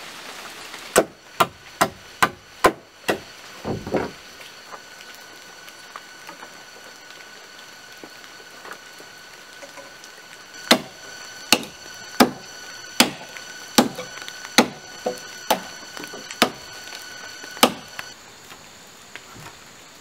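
Machete chopping into the edge of a wooden floor plank: a quick run of about six chops a second in, then after a pause about ten more, slower, about one a second.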